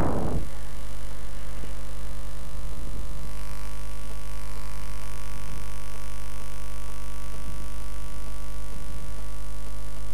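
Steady electrical mains hum with a stack of evenly spaced overtones, running unchanged at an even level.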